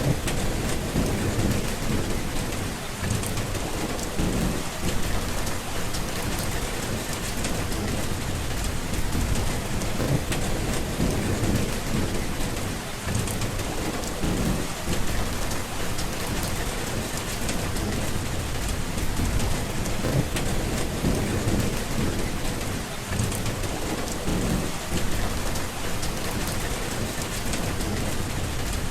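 Steady heavy rain falling, with low rolling thunder rumbling in repeated swells underneath.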